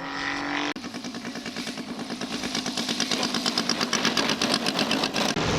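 Radio-controlled scale model aircraft engine running with a rapid, even pulsing that grows steadily louder, starting abruptly just under a second in.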